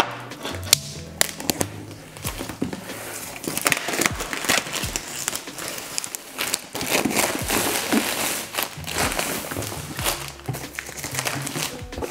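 Plastic protective film crinkling and crackling as it is peeled and pulled off a product box, with background music underneath.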